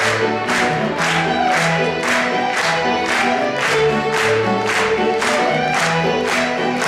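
A live Irish traditional tune played by a youth ceili band of fiddles, flutes, keyboard, accordion and harp, with a sharp steady beat about twice a second under the melody.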